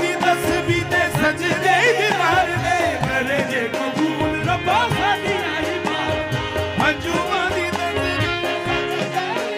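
Live qawwali: male lead singers singing in full voice over held instrumental tones and a steady percussion beat.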